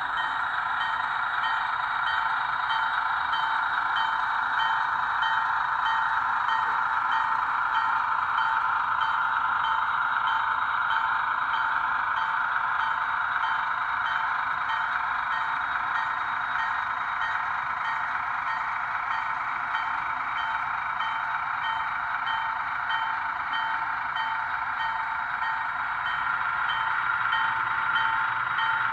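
HO scale model diesel switcher running on the layout: a steady whine with a faint high ticking repeating about one and a half times a second.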